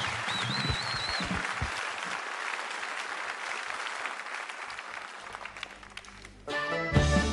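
Studio audience applauding, with a few whistles at first, the clapping slowly dying down. About six and a half seconds in a tin whistle starts up, and a moment later an Irish folk-punk band with drums, bass, accordion and banjo comes in loudly together.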